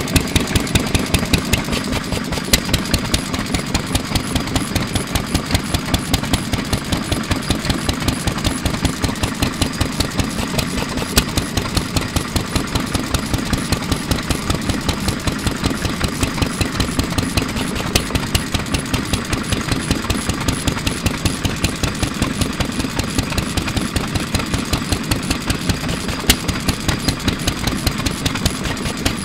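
Shikoku Karui Type M 3 hp single-cylinder oil engine, built around 1950, running steadily with an even, fast beat and now and then a sharper knock.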